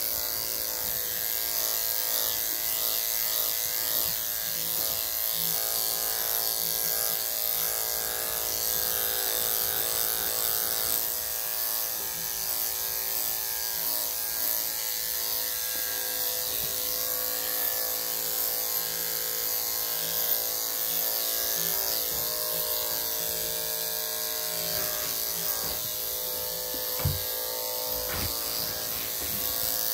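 Corded electric dog-grooming clippers with a 3 3/4 blade running steadily as they go back over a curly coat to clean up missed spots. Two brief knocks near the end.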